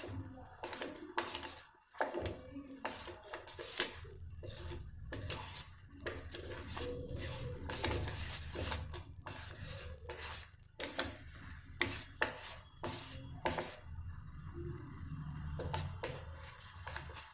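A spoon stirring syrup in a cooking pot, clinking and scraping against its sides in irregular strokes over a low steady rumble.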